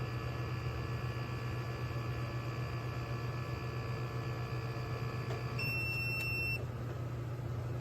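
Zordin portable espresso machine running with a steady electric hum and whine. About five and a half seconds in the whine stops and the machine gives a single high beep lasting about a second.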